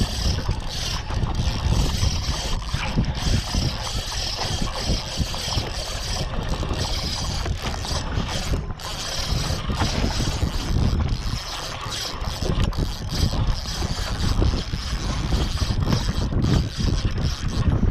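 A fishing reel being cranked steadily, winding a hooked fish up from the bottom, under heavy wind buffeting the microphone.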